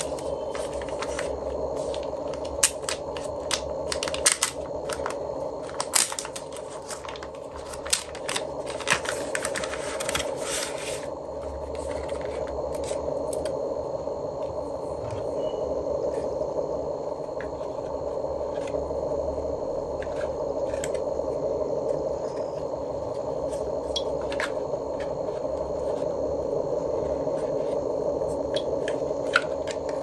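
Hands handling a small gimbal camera, its accessories and packaging: a quick run of sharp clicks and taps through the first ten seconds or so, then scattered single clicks, over a steady low hum.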